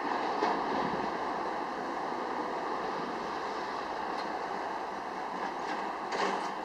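Steady outdoor rushing noise of wind and distant road traffic, with a brief faint rattle about six seconds in.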